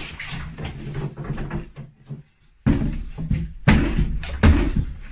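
Watermelon being smashed on a table: a sudden heavy thud about two and a half seconds in after a brief hush, then two more heavy thuds about a second apart.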